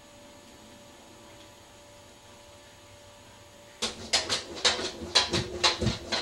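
A dog makes a quick, loud run of about ten short, sharp sounds over two and a half seconds, starting about four seconds in.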